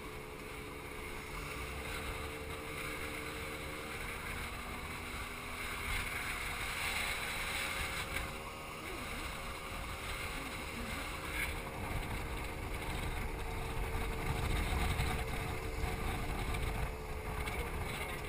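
Motor scooter engine running steadily at cruising speed, with wind buffeting the microphone.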